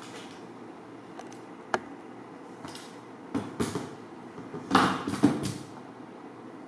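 Handling noise from a handheld camera: a sharp click a little under two seconds in, then bursts of rustling and knocking, loudest about five seconds in.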